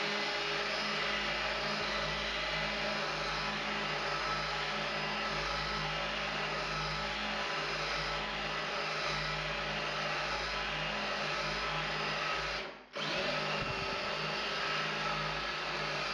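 Cordless drill running steadily at moderate speed, a small glass-and-tile bit grinding a pilot hole into the wall tile under light, gentle pressure. The motor stops for a moment about thirteen seconds in, then starts again.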